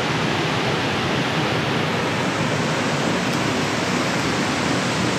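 Steady rushing of creek water pouring over rapids or a small waterfall, an even unbroken wash of noise.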